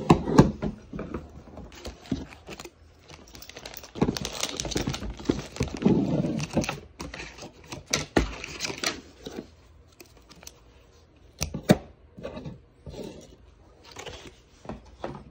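Hands handling phone repair parts and their packaging: plastic wrapping rustling and crinkling, with irregular clicks and light knocks as items are picked up and set down.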